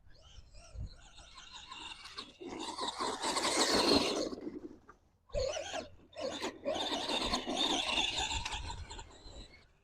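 Arrma Gorgon RC monster truck's stock brushed electric motor and gears whining under throttle as it drives on dirt, in two long runs with a brief stop about five seconds in.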